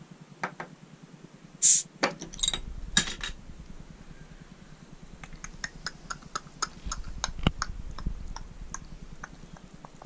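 An old restored bottle opener prying the cap off a glass soda bottle. A short, loud hiss of escaping carbonation comes as the cap lets go, followed by a few metallic clicks and clinks from the cap and opener. Later come a scatter of light ticks.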